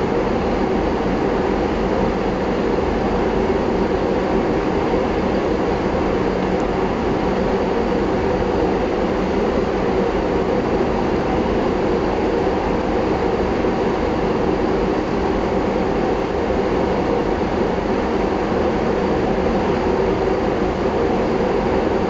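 Steady room hum from an air conditioner, an even hiss over a low drone, unchanging throughout.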